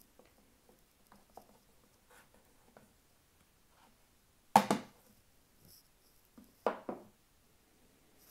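Hands handling a hard-shell knife presentation case and lifting a folding knife out of it. Faint rustles and small clicks, then a loud thump about four and a half seconds in and a quick double thump near seven seconds.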